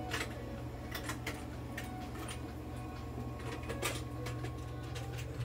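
Steady low hum of the oxygen and inhalation equipment feeding a cat's hospital cage through a corrugated hose, with several light clicks and taps.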